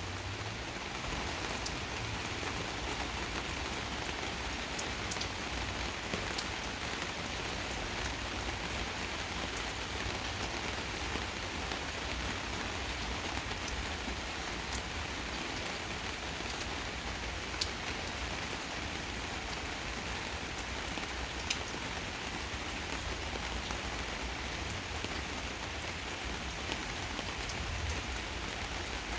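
Steady rain falling in a gentle rainstorm, an even hiss with scattered sharp drip ticks throughout.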